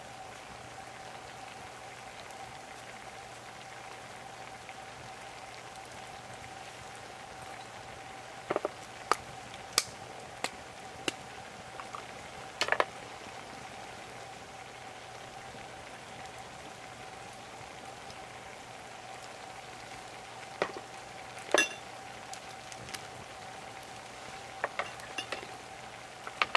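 A pot of noodles boiling over a wood fire, giving a steady hiss. About a dozen sharp pops and crackles from the burning wood come through it, mostly in the second half, the loudest about 21 seconds in.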